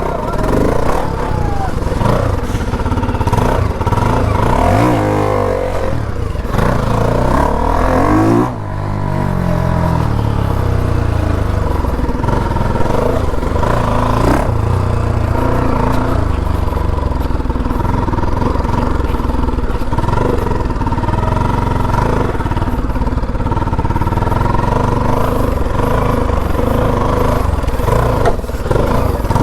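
Motorcycle engine running while riding, the revs climbing in the first several seconds, then a brief drop about eight seconds in, like a gear change, and then a steady engine note.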